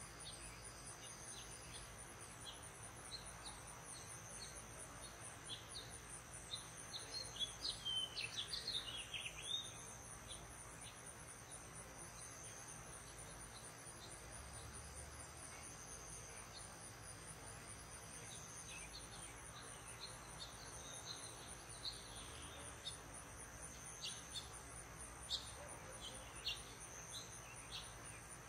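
Evening chorus of singing insects: a steady high trill with a faster pulsing trill above it, over scattered short bird chirps. From about 7 to 10 seconds in a bird gives a quick burst of chirping song, the loudest part.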